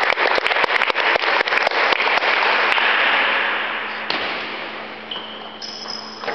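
Applause and clapping echoing in a sports hall, dying away over the first three or four seconds. Then a quieter stretch with a few sharp table tennis ball hits.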